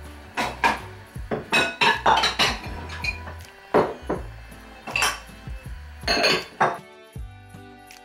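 Dishes being unloaded from a dishwasher rack: cups and bowls clinking and knocking one after another as they are set down on the countertop. Music comes in near the end.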